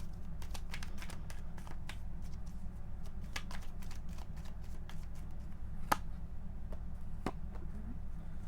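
Tarot cards being handled: an irregular string of light clicks and flicks as cards are shuffled and drawn, with one sharper snap about six seconds in, over a steady low hum.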